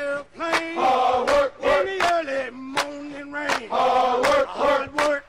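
Several male voices chanting in unison, holding and bending sung notes, with sharp hissy strokes recurring throughout.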